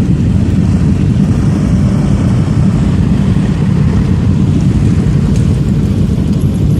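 Steady wind rush buffeting the microphone of a Benelli TNT300 motorcycle ridden at road speed, with its engine running underneath.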